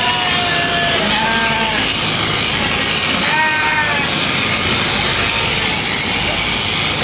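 Sheep bleating: a few wavering calls near the start, about a second in and again about three seconds in, over a steady rushing noise.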